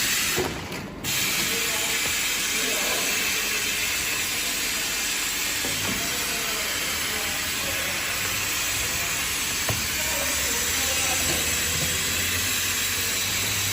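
Automatic sealing machine running: a steady hiss with faint mechanical clicking, and a low hum coming in about halfway.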